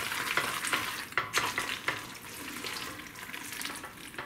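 A spatula stirring thick macaroni and cheese with ground beef in a stainless steel pot: wet, sticky mixing with a string of short scrapes and taps against the pot.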